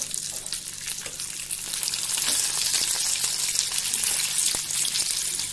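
Semolina-coated Bombay duck (bombil) fillets sizzling as they shallow-fry in hot oil in a pan. The sizzle grows louder about two seconds in.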